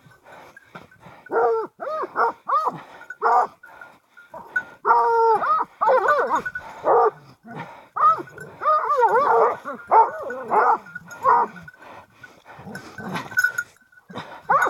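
Hunting dogs barking and baying, a string of loud calls with short pauses, as they seize and hold a wild boar.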